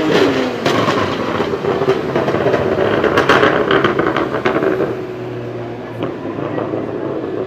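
BMW 1M Coupé's twin-turbo straight-six with anti-lag, falling off a rev into a dense run of exhaust pops and crackles for the first four seconds or so, then settling to a steadier engine drone.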